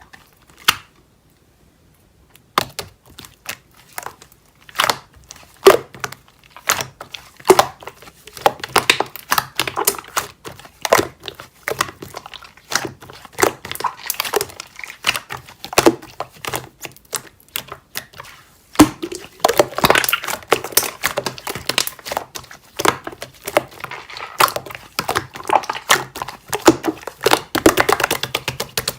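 Hands playing with slime: squishing, pressing and stretching it, with irregular sharp pops and crackles of trapped air. It starts a couple of seconds in and grows busier in the second half.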